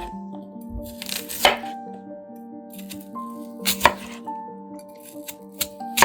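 Background music with a gentle melody, over a few separate knife strokes on a cutting board: a longer cut about a second in, a quick pair near the middle, and a few more toward the end.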